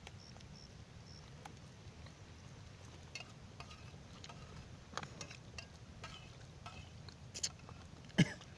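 Scattered small clicks and taps of coral rubble shifting as a long-tailed macaque handles its food and moves on a rocky beach, with a sharper knock about eight seconds in, over a steady low background rumble.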